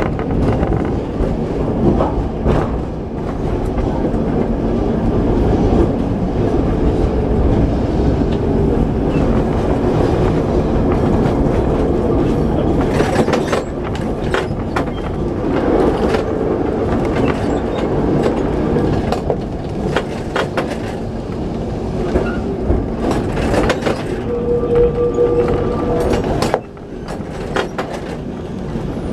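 A Lisbon Carris tram heard from on board as it runs along street rails: a steady rumble and rattle of the car, broken now and then by sharp clicks and knocks from the wheels on the track. Near the end a brief thin squeal of the wheels rises above the rumble, and the noise then drops for a moment.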